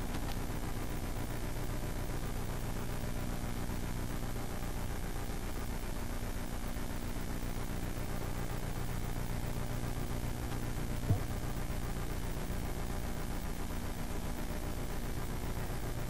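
A steady low hum with an even hiss underneath and no speech. A single faint click comes about eleven seconds in.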